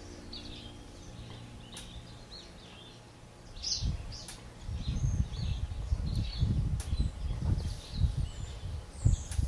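Small birds chirping in short, high calls scattered through the outdoor air, with a few sharp clicks. From about four seconds in, low rumbling bursts come and go on the microphone.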